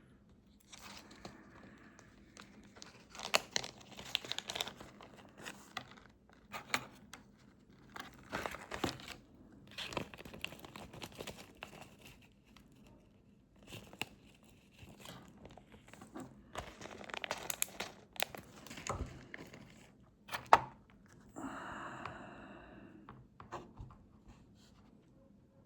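Crinkling and rustling of a small plastic packet, with scattered sharp clicks of small parts being handled, and a short squeak near the end.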